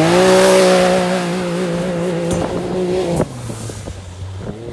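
Can-Am Maverick X3 side-by-side launching at full throttle: the engine revs climb steeply, then hold high and steady as it pulls away. About three seconds in, the sound drops suddenly to a fainter, lower engine note.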